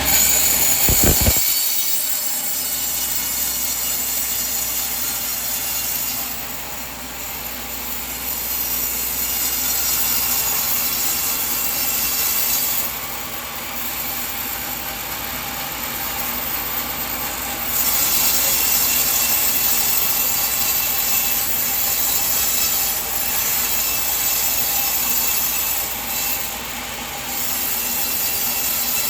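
Band sawmill cutting a coconut log: a continuous, hissy sawing noise that dips in level a few times. A low knock sounds about a second in.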